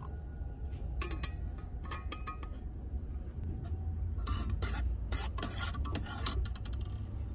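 A spoon stirring tea in a metal camping mug, clinking against its sides in short bursts several times, over a steady low rumble.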